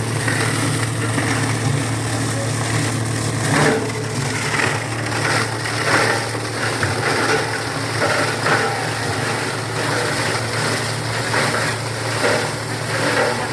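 Paper and cardboard shredding machine running: a steady motor hum with irregular bursts of crunching and tearing as material passes through its blades.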